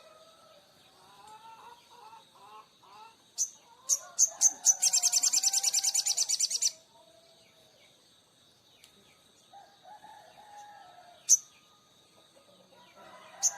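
Sogon songbird calling: a few sharp high chips that run straight into a fast high trill of about two seconds, then single sharp chips later on. Lower, warbling calls of other birds and a steady high hum sit underneath.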